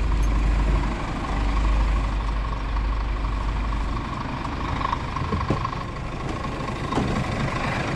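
Scania R410 truck's 13-litre inline-six diesel engine idling steadily with a deep rumble, which drops back about halfway through.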